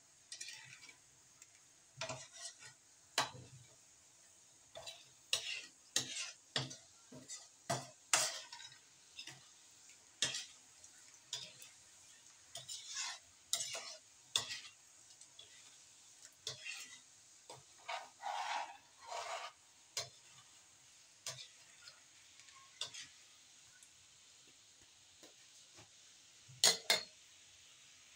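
A spatula stirring and scraping a thick brown syrup in a steel wok, with irregular scrapes and clinks against the pan that thin out later on. Two sharp knocks come close together near the end.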